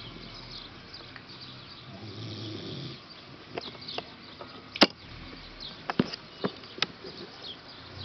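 Black Russian terrier snoring in its sleep, a slow, low breath swelling and fading, over steady faint high chirps. Several sharp clicks sound in the middle, the loudest about five seconds in.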